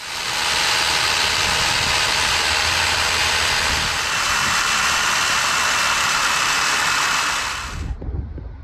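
Circular saw driving a chain-and-bar beam cutter attachment, running at full speed and cutting through a timber with a steady loud buzz. It stops abruptly near the end.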